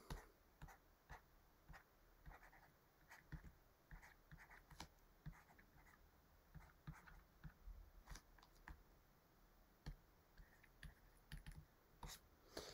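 Near silence broken by faint, irregular ticks and light scratches of a stylus writing on a tablet.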